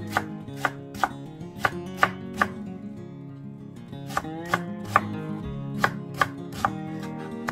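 Kitchen knife cutting a Korean radish into thin matchsticks on a plastic cutting board: sharp, even knife taps on the board about two a second, with a brief pause near the middle.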